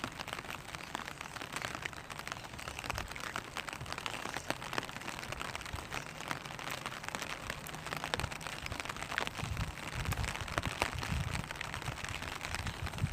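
Raindrops falling on a clear vinyl umbrella: a dense patter of small taps over a steady hiss of rain. A low rumble joins in over the last few seconds.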